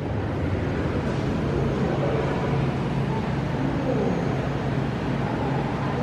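Steady background hum and hiss of a large indoor exhibit space, with a low constant tone and faint distant voices.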